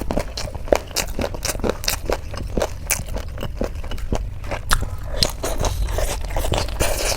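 Close-up eating sounds: a person biting and chewing crunchy Indian street snacks, with quick, irregular crisp crunches throughout.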